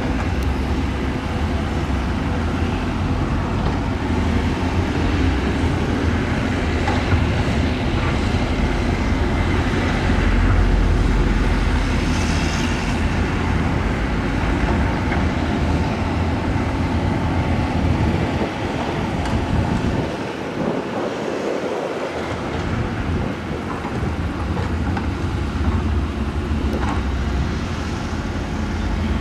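Heavy earthmoving machinery working: the diesel engines of a crawler bulldozer and excavators running in a steady, loud drone. The low rumble dips briefly about twenty seconds in.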